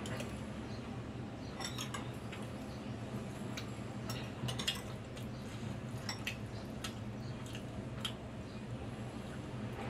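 Stainless-steel fork and spoon clinking and scraping against a ceramic bowl of noodle soup as the noodles are stirred and lifted: scattered short clinks over a steady low hum.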